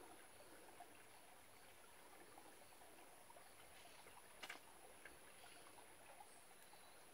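Near silence: the faint trickle of a shallow rocky stream, with a thin steady high tone and a single sharp click about four and a half seconds in.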